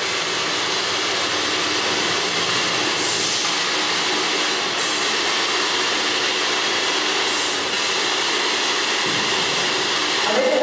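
Steady loud hiss of radio static from a handheld ghost-hunting radio device.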